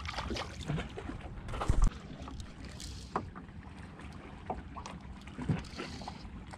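Water slapping against the hull of a small open boat, with wind on the microphone and scattered light knocks. A heavy thump about two seconds in is the loudest sound.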